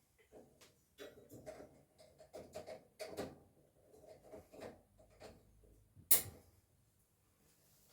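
Network patch cable being handled with small rustles and clicks, then one sharp click about six seconds in as an RJ45 plug snaps into a patch-panel port.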